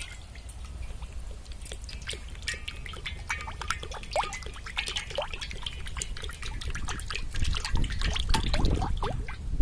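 Cooking oil pouring in a stream from a plastic can into an iron kadai, splashing and trickling with many quick bubbling blips, growing louder toward the end.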